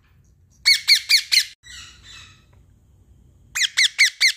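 Blue Indian ringneck parakeet giving two quick runs of about five sharp squawks each, about a second in and again near the end, with softer chatter between them.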